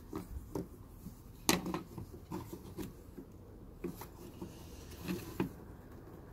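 Irregular plastic clicks and knocks from hands pulling and working a plastic connector part in a car's engine bay, the sharpest knock about a second and a half in and a few more near the end.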